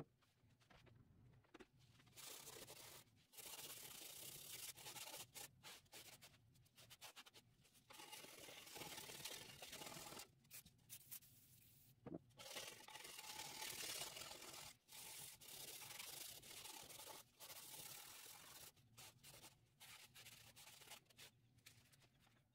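Faint scrubbing of caked grime from the inside of a 1967 Honda CB77 Super Hawk's chrome-plated steel rear fender, with a rag wrapped on a wooden stick: irregular rubbing strokes broken by short pauses.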